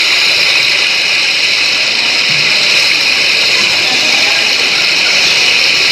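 Loud, steady hiss, high in pitch, holding level without change.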